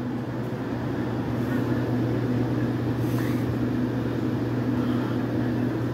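Steady low mechanical hum from machinery running nearby, with an even pitch that holds throughout.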